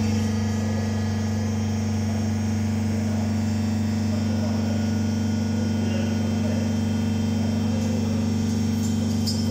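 Spomasz 450 paddle mixer's drive running with a steady, even hum while its stainless-steel lid arm swings down on a held control button.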